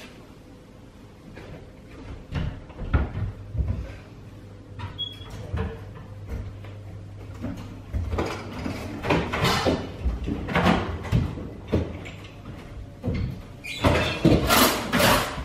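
Kitchen drawers and cupboard doors being pushed shut one after another: short sliding rumbles ending in knocks and bangs. They come in clusters about two seconds in, again from about eight to eleven seconds, and loudest near the end.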